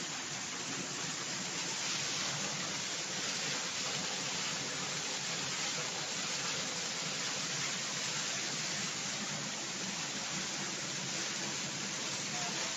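Rainwater pouring down through a leaking ceiling onto a tiled floor, a steady, unbroken rushing.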